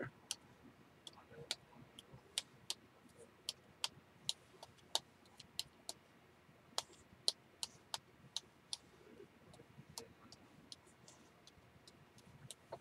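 Faint, sharp clicks at an uneven pace, about two a second with a couple of short pauses: a small bottle of Color Bursts watercolour powder being tapped to sprinkle chartreuse pigment onto wet paper.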